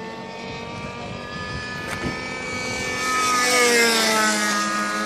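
Radio-controlled model airplane's O.S. 46 LA two-stroke nitro glow engine running at high revs in a flyby. Its buzz grows louder to a peak about three and a half seconds in, then drops in pitch as the plane passes and moves away.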